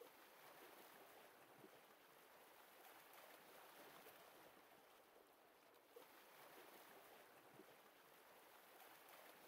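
Faint lake water lapping gently, a soft wash that swells and eases about every three seconds, with a couple of faint clicks.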